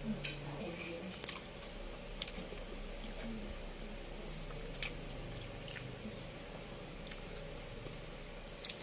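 Close-miked chewing of soft, sticky steamed rice cakes (kutsinta and puto), with wet mouth clicks and smacks scattered throughout. A short low closed-mouth hum comes at the very start.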